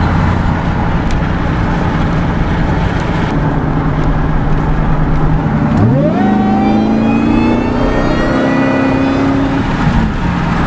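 2002 SVT Lightning's supercharged 5.4-litre V8 cruising steadily. About six seconds in, it kicks down and accelerates hard, the engine note sweeping up with a higher whine climbing alongside it. It eases off shortly before the end.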